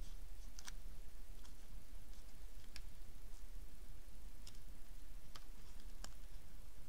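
Small die-cut paper petals being pinched and shaped between fingers, giving a few faint scattered clicks and crinkles, over a steady low hum.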